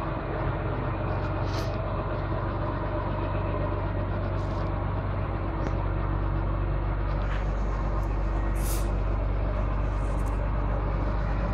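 Fadroma wheel loader's diesel engine running steadily, with a few short hisses.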